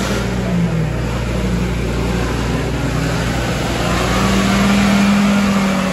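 Engine running steadily, growing louder and slightly higher from about four seconds in, then easing near the end.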